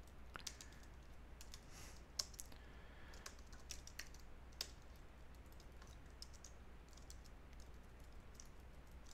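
Faint typing on a computer keyboard: irregular single keystrokes, busier in the first few seconds and thinning out after that.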